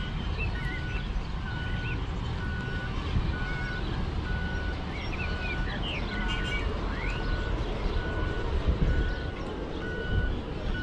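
Miniature ride-on train running with a steady low rumble, while an electronic warning beeper sounds a short high beep about three times every two seconds. Birds chirp briefly now and then.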